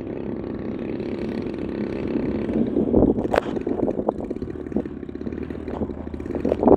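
Engine of a large RC Piper PA-18 model aircraft running steadily on the ground, with a few louder knocks about three seconds in and near the end.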